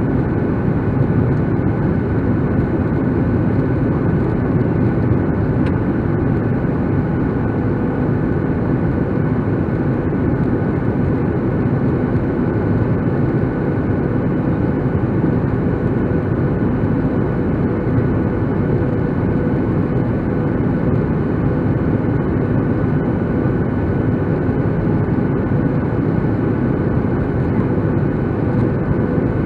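Steady roar of a Boeing 737 airliner's jet engines and airflow, heard inside the cabin during the descent, with a faint steady hum running through it.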